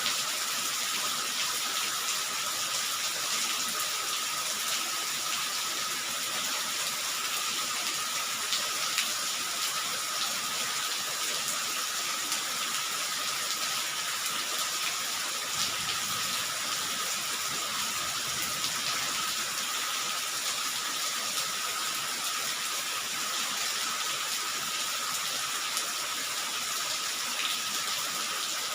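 Steady rain falling: an even hiss with a few faint drop ticks, and a thin steady tone running underneath.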